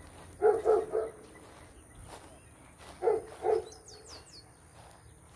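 An animal barking: three short barks about half a second in, then two more a little past the middle, with faint high bird chirps just after.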